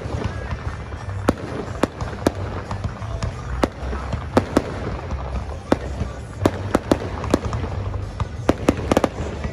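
Aerial fireworks going off: a dozen or more sharp bangs and pops at irregular intervals, coming thicker near the end.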